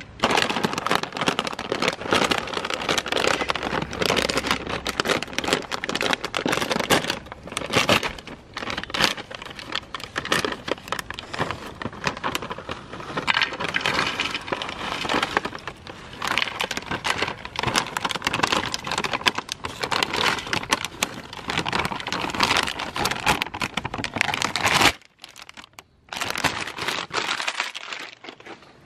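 Crinkly plastic snack bag of Bingo Mad Angles being handled and shaken, with the crisps spilling out onto a ceramic plate: continuous crackling and rustling that stops suddenly about 25 seconds in.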